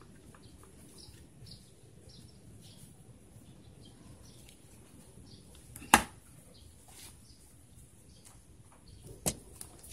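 Quiet handling: a dry tissue wiping the inside of a clear plastic helmet visor in short strokes, with one sharp click about six seconds in and a smaller one near the end.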